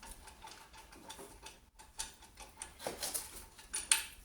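Scattered light metallic clicks and ticks of hand tools and loose parts being handled on a car's rear subframe, with a couple of sharper clicks in the second half.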